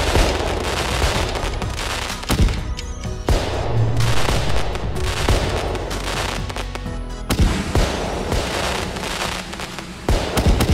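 Fireworks: a dense, continuous crackle of bursting shells with sharp bangs every second or so, the strongest about two, seven and ten seconds in.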